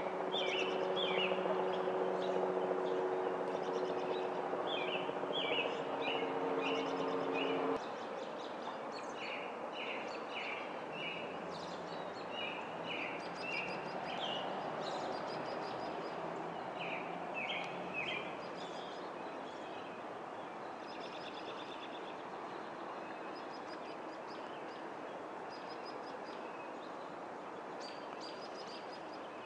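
Small birds chirping in quick runs of short high notes over steady outdoor background noise. A low machine drone of several steady tones runs underneath for the first eight seconds or so and cuts off suddenly.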